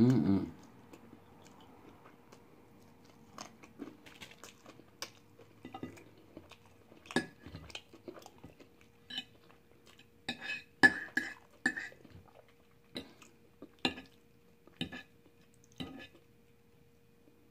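Close-up chewing of fried chicken, with a metal fork tapping and scraping on a plate in scattered short clicks, busiest around the middle. A faint steady hum runs underneath.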